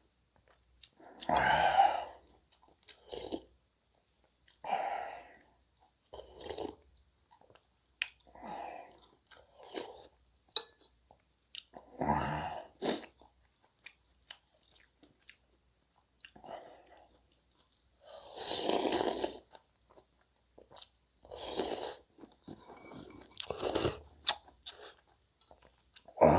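A person chewing mouthfuls of food close to the microphone, in separate bouts one to three seconds apart, with small clicks between them.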